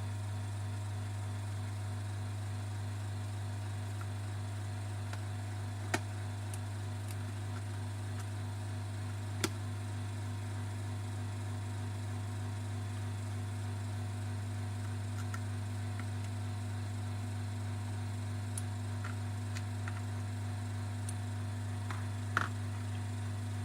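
Steady low electrical hum, with a few faint sharp clicks from small phone parts and tools being handled during the repair.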